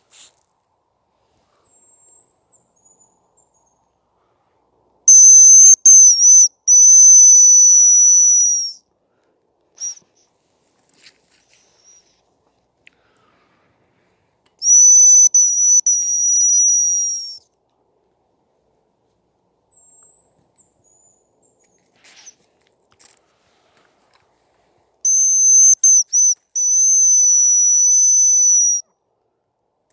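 Hazel grouse whistle call blown on a hunter's lure: three loud, high, thin whistled phrases about ten seconds apart, each made of a few short notes followed by a longer held whistle.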